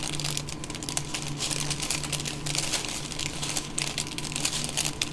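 Small plastic bags of diamond-painting rhinestones handled by fingers: crinkling plastic and a run of light, irregular clicks as the loose resin drills rattle inside.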